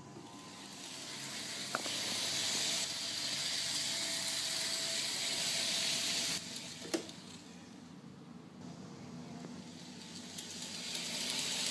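Heljan O gauge class 47 model locomotive running along the track, its wheels and drive mechanism making a quiet rolling hiss with the roof-fan motor unplugged and a DC controller driving it. The noise swells as it passes close, drops off sharply about six seconds in and builds again near the end, with a couple of sharp clicks.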